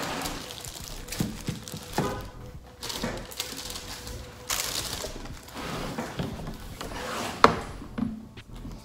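Clear plastic shoe bags and tissue paper crinkling and rustling as sneakers are handled out of a cardboard shoebox, with several knocks as the shoes and the box are set down on a table; the loudest, sharp knock comes near the end.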